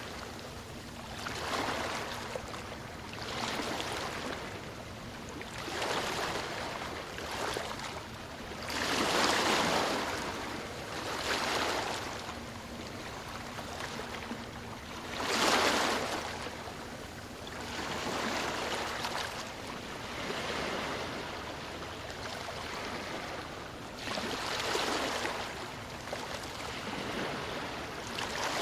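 Ocean waves breaking and washing up the shore, coming in surges every few seconds, the loudest about halfway through.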